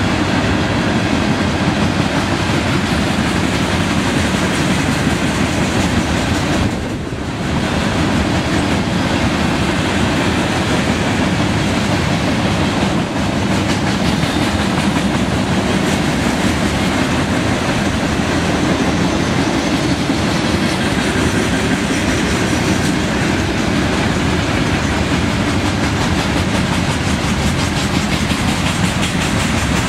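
A freight train of CSX hopper cars rolling steadily past, its steel wheels clattering over the rail joints in a continuous loud rolling noise, with a brief lull about seven seconds in.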